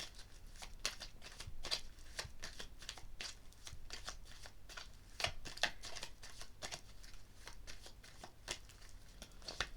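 A tarot deck being shuffled and handled by hand: an irregular run of short, crisp card clicks and slides.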